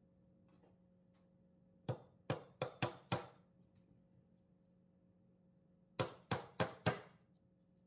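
A small hammer tapping a nail into a pine board: five quick strikes, then after a pause of about three seconds, four more, about three strikes a second.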